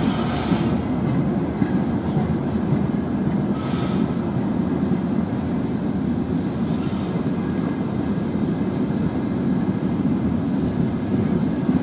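Freight train of railway tank cars rolling past below: a steady, dense rumble of wheels on rails, with a few faint, brief high-pitched wheel squeals.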